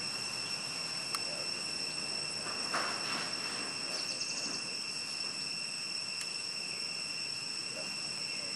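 Steady, high-pitched insect chorus of the crickets-and-cicadas kind, with a brief scuffing burst about three seconds in.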